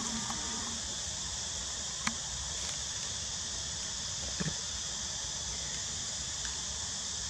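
Steady high-pitched chorus of insects buzzing, with a couple of short clicks about two and four and a half seconds in.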